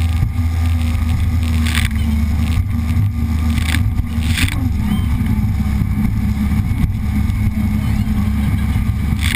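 WaveRunner personal watercraft engine running steadily at speed, under the rush of wind and spray on the handlebar-mounted camera, with a few short bursts of rushing noise.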